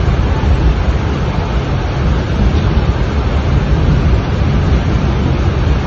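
Loud, steady rush of fast-flowing floodwater.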